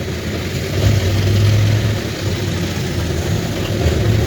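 Vehicle engine and road noise while driving: a steady low rumble with a broad hiss over it.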